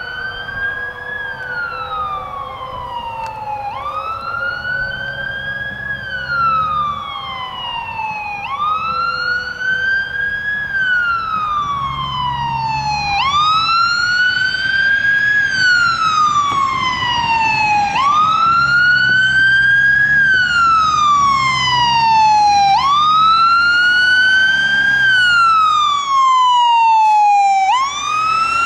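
Fire engine siren wailing as the truck approaches, growing louder. The pitch rises quickly, then falls more slowly, about every five seconds.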